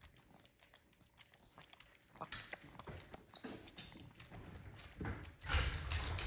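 Spider monkeys sucking milk from baby bottles: after a quiet start, a run of wet clicking and smacking noises begins about two seconds in and grows louder, with a louder stretch of rustling near the end.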